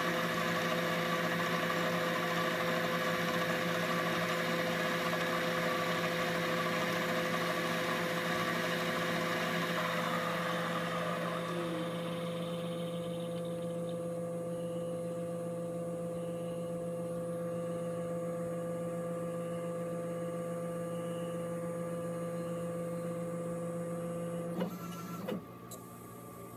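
CNC lathe spindle running with a steady whine while the insert tool cuts the Delrin rod, a rough cutting hiss over the first ten seconds or so. The hiss then stops as the tool clears and the motor runs on alone, until a short clatter about 25 seconds in and the spindle stops.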